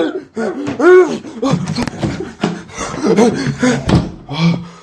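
A man yelling and grunting without words during a scuffle, with repeated knocks and thumps mixed in; the loudest yell comes about a second in.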